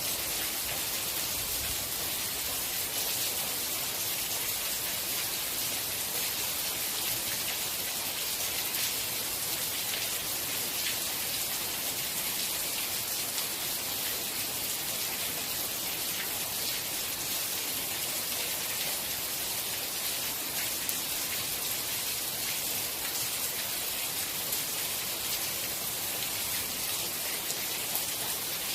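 Steady rain falling, a dense, even hiss with the patter of individual drops.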